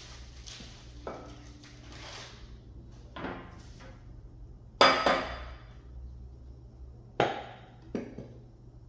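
Glue being squeezed out of a small plastic bottle into a bowl: about five short, sudden bursts that fade quickly, the loudest about five seconds in, as the bottle is pressed to get the last of the glue out.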